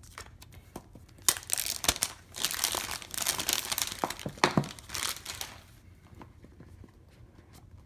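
Plastic shrink-wrap crinkling and tearing as it is stripped off a smartphone's retail box, in dense bursts with a few sharp snaps, dying down to faint handling noise for the last couple of seconds.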